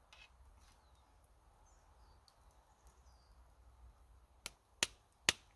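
Quiet outdoor background with a few faint, distant bird chirps, then three sharp clinks near the end from a metal spoon knocking against a metal mug.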